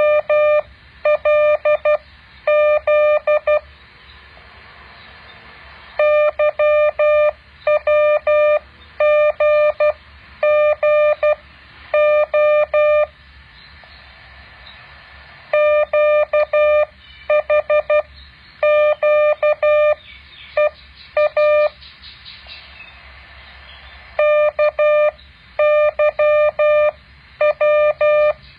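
Morse code practice tone: a single steady beep keyed on and off in dots and dashes, sent in groups of characters for copying practice. Pauses of two to three seconds separate the groups, and a faint hiss fills the gaps.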